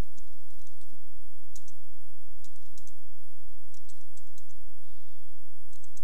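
Computer keyboard typing: irregular short runs of key clicks over a steady low hum.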